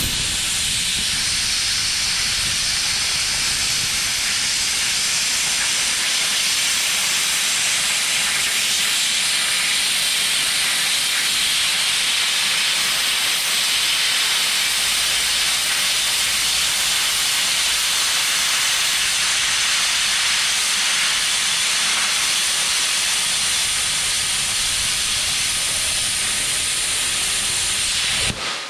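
Plasma cutter cutting through the leg of 3/8-inch steel angle iron: a loud, steady hiss that starts abruptly and stops near the end.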